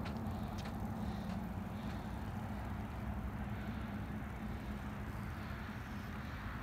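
Steady low outdoor rumble, with a couple of faint short clicks in the first second.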